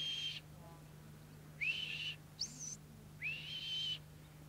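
Sheepdog handler's whistle commands to a working Border Collie. A held whistle note ends just after the start, then comes a note that rises and holds, a quick upward flick to a higher pitch, and a longer note that rises and holds.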